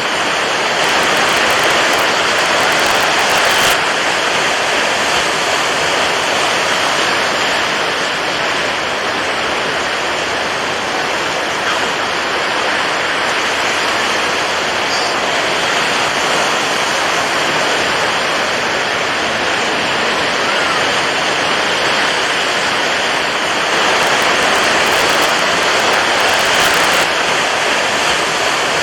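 Water waves: a continuous rush of water, swelling slightly louder twice, once near the start and once near the end.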